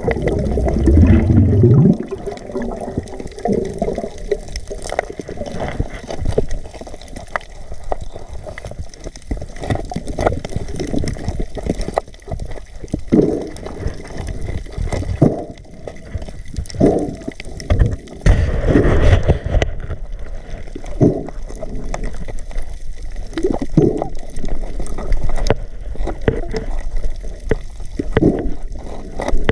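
Water sloshing and gurgling with scattered short knocks, as heard on a diver's camera in the sea. There is a loud low rush in the first two seconds and a louder rush of water about two-thirds of the way through.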